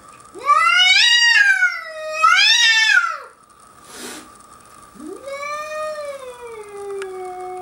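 Domestic cat giving two long, wavering threat yowls at a bobcat. The first is loud and swells twice. The second starts about five seconds in, lower, and slides steadily down in pitch.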